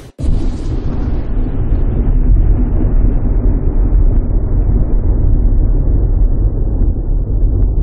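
A loud, deep rumbling sound effect that starts abruptly and grows steadily duller as its higher tones fade away.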